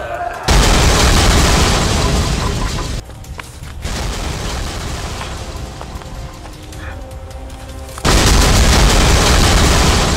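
Two heavy explosion booms, one starting about half a second in and fading after some two and a half seconds, the second about eight seconds in, over background music.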